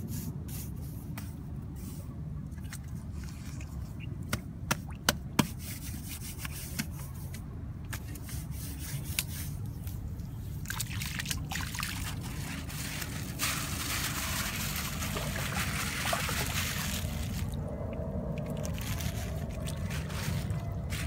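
Water trickling and splashing, with wet mud being slapped, scraped and smoothed by hand, including a few sharp slaps about five seconds in. The water noise grows louder and hissier from about the middle on.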